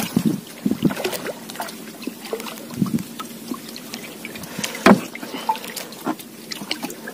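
Small waves lapping and trickling against the hull of a small outrigger canoe, with scattered light knocks and one louder knock about five seconds in.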